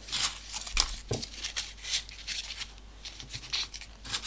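Folded paper pieces of a modular origami model rustling and scraping as they are slid into place, a series of short irregular rustles and small clicks.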